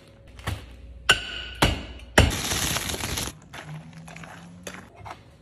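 Oreo cookies in a zip-top plastic bag being smashed to crumbs: four sharp thuds about half a second apart, followed by a second of noisy crunching.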